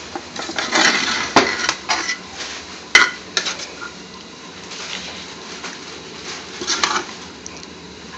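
Metal spoon clinking and scraping against a steel cooking pot as cooked spinach is scooped out and put on a plate, with a run of knocks early on, one sharp clank about three seconds in and a few more clinks near the end.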